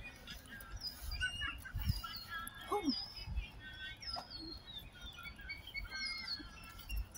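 Birds chirping and calling, with many short falling whistles scattered through, under irregular low thumps from the phone being carried while walking.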